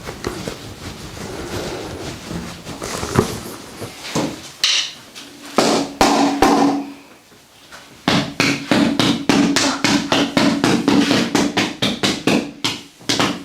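Rhythmic percussive strikes on a person's body during manual massage: a few scattered knocks at first, then from about eight seconds in a fast, even run of sharp slaps, about three a second.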